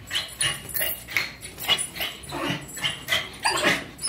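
Small dogs whining and giving short yips, a quick string of brief cries about three a second.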